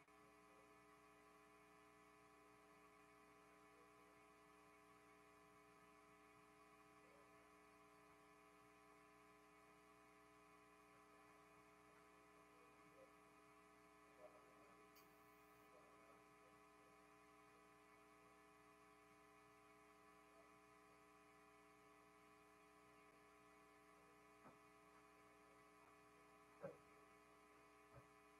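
Near silence: a faint, steady electrical hum made of several steady tones, with a few faint clicks, the sharpest near the end.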